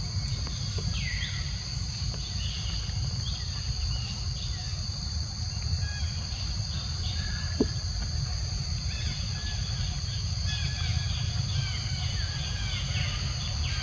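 Forest insects droning steadily on two high tones. Short falling chirps come through, growing frequent from about nine seconds in, over a low rumble.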